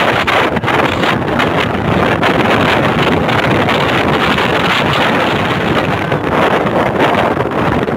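Typhoon-force wind blasting across a phone microphone: a loud, continuous rushing with rapid gusty buffeting.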